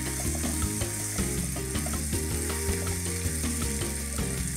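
Background music over onions, tomatoes and garlic sizzling in a frying pan as they are stirred with a wooden spoon.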